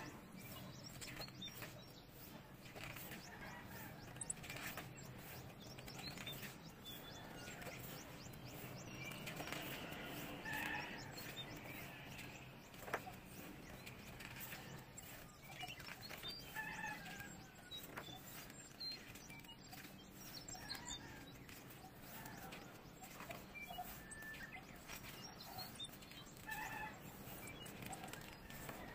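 Glossy photobook pages turned by hand, soft paper rustles and flaps now and then, over a faint steady low hum.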